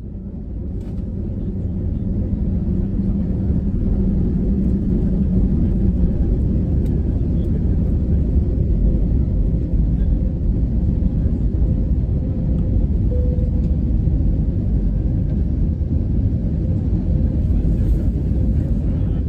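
Cabin noise in a Lufthansa Airbus A320neo at takeoff and initial climb: the engines at takeoff thrust and the airflow make a loud, steady low rumble, fading in over the first couple of seconds.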